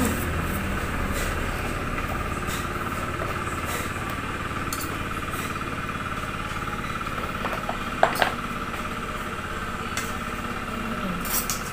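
A steady mechanical hum throughout, with a kitchen knife making scattered light clicks and taps on a plastic cutting board and two sharper knocks about eight seconds in.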